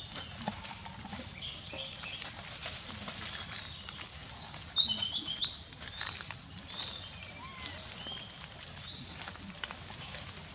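Birds chirping in the forest, with a louder run of chirps about four seconds in that steps down in pitch, over scattered small clicks and rustles.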